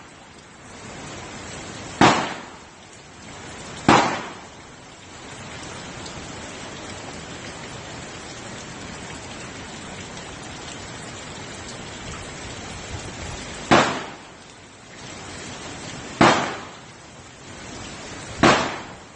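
Hurricane rain and wind: a steady hiss of heavy rain, broken five times by sudden loud bursts that each fade within about a second.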